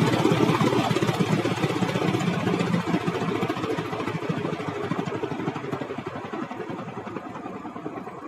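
A vehicle's engine running with a steady throbbing beat, fading steadily as it moves away.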